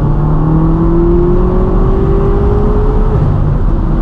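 Twin-turbo V8 of an 800 hp BMW M6 Gran Coupe with catless downpipes and a straight-piped exhaust, pulling hard in third gear with its pitch climbing steadily. About three seconds in the note breaks off for a manual upshift and picks up again at a lower pitch.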